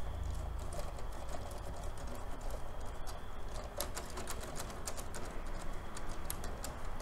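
LEGO Technic Power Functions motors running under load, with a faint high whine that stops about halfway and rapid irregular clicking of plastic gears throughout. The motors are straining a little, which is normal for this model.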